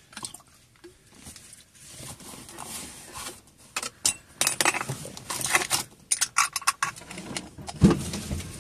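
Hands handling small plastic bottles: a busy run of clicks, rattles and rustles, with a dull thump near the end.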